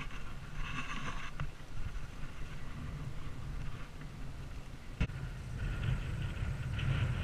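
Wind rumbling over the camera microphone while a mountain bike rolls along a muddy double-track, with a single sharp click about five seconds in.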